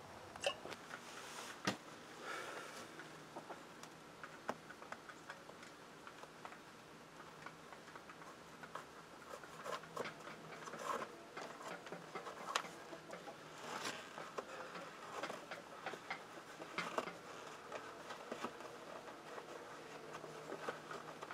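Faint rustling and small clicks of leather work-boot laces being pulled and worked by hand, with a couple of sharper clicks in the first two seconds.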